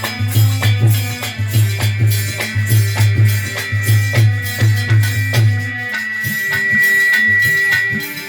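Instrumental interlude of folk-song accompaniment: a heavy drum beat with rattling percussion that drops out about six seconds in, leaving a long held high note over lighter percussion.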